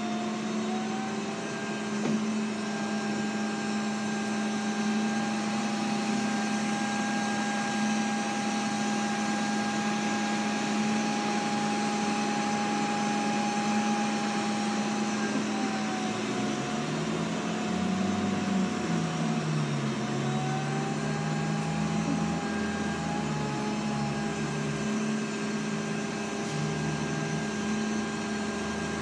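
ENC hydrogen fuel cell bus standing at a stop, its electric machinery giving a steady hum and several level whines that drift a little in pitch. A lower droning tone that wavers up and down joins about halfway through.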